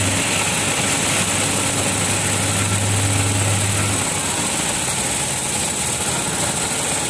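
Machinery running steadily: a low hum that drops away about four seconds in, over a constant hiss.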